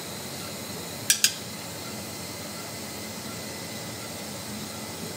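Steady background hiss with two quick, sharp clicks about a second in, a fraction of a second apart.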